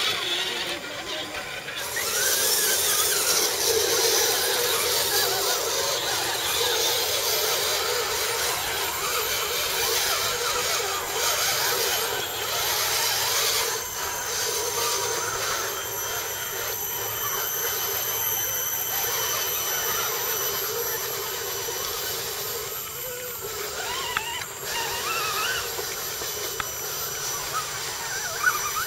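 Radio-controlled scale trucks' electric motors and gearboxes whining steadily as the trucks crawl through the mud.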